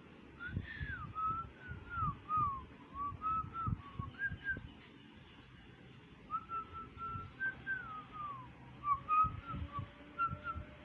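A person whistling a tune: a single clear line of held notes and short downward slides, breaking off for about a second in the middle before carrying on. Soft low thumps sound underneath.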